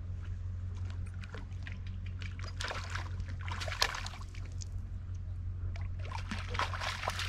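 Water splashing and trickling in two irregular spells, over a steady low hum.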